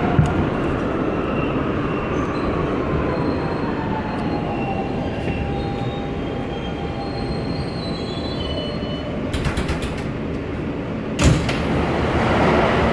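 R160B subway train with Siemens propulsion braking into a station: steady rumble of the wheels on the rails, a whine sliding slowly down in pitch as it slows, and faint wheel squeal. A few clicks near the end, then a sudden loud burst shortly before it stops.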